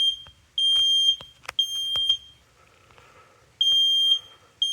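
The built-in sounder of an i4 smoke detector beeps a steady high-pitched tone in the temporal-three fire evacuation pattern. It gives three half-second beeps, pauses for about a second and a half, then starts the next set. A few faint clicks sound between the beeps, the sharpest about a second and a half in.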